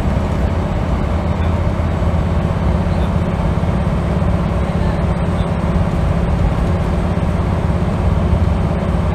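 Scania L94UB single-decker bus's rear-mounted 9-litre diesel engine running steadily while the bus is under way, heard from inside the passenger saloon over road and tyre noise.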